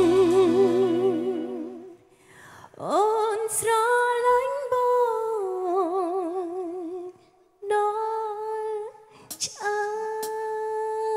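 A single voice singing alone, holding long notes with a wide vibrato and sliding up into them, in several phrases separated by short breaks. The band's backing drops out about half a second in.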